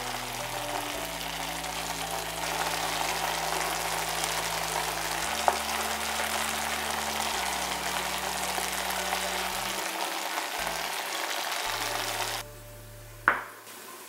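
Tomato sauce with eggs sizzling in a frying pan, over soft background music with low held notes. The sizzle cuts off suddenly about twelve seconds in, and a single sharp clink follows a second later.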